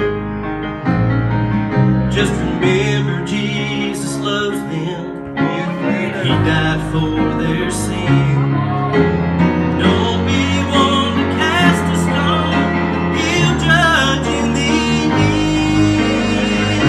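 Grand piano playing a slow gospel accompaniment while a man sings, his held notes wavering.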